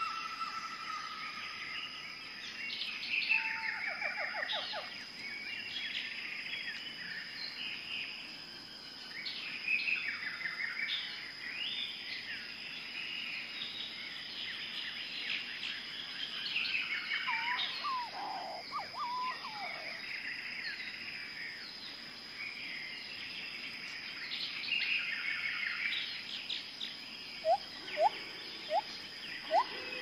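Jungle nature ambience: many birds chirping and trilling over a steady high-pitched hum. Near the end comes a louder run of short rising calls.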